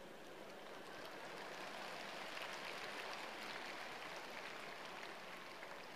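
Large audience applauding and laughing. The clapping swells over the first couple of seconds, then dies away toward the end.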